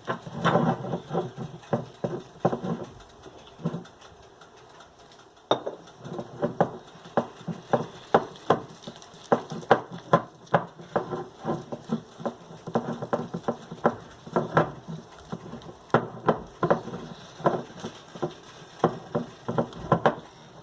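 Gram flour being mixed with a little water into a thick batter in a bowl: a long run of quick, irregular taps and soft knocks, sparser at first and then steady at two to three a second from about five seconds in.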